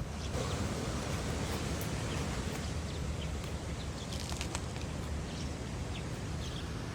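Steady outdoor background noise with a low rumble, and faint short high chirps now and then.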